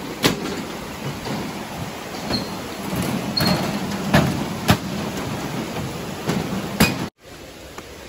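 Footsteps clanking on a metal-plate footbridge: irregular knocks over the steady rush of a rocky stream below. The sound cuts off suddenly about seven seconds in.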